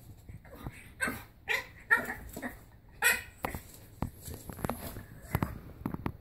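French bulldog puppy yapping in a quick string of short, high little barks, most of them in the first three seconds, followed by a few soft thumps. It is barking at its own reflection in a mirrored wardrobe door.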